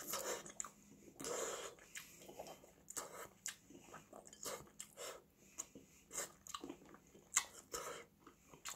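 Close-miked chewing of sundae (Korean blood sausage): wet, irregular mouth sounds with many short clicks and smacks.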